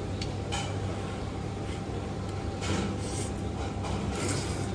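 Background noise at a food stall: a steady low hum with a faint steady tone under it, a few light clicks, and two brief rustling, clattering noises, one just past halfway and one near the end.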